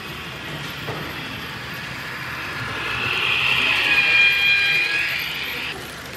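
A model train runs past close by. Its running noise grows louder and peaks about four seconds in with a high whine made of several steady tones, then stops abruptly near the end.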